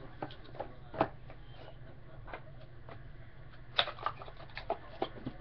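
Scattered light clicks and taps of hands handling trading-card boxes and cards on a counter, with a sharper knock about a second in and another near four seconds.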